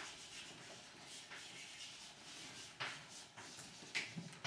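Chalk writing on a blackboard: faint scratching strokes, with a few sharper ones about a second in, near three seconds and near the end.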